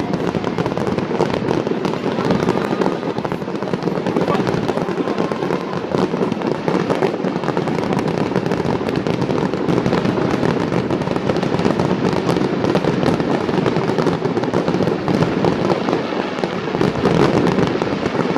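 Fireworks going off in a dense, continuous barrage: many rapid, overlapping bangs and crackles with no break.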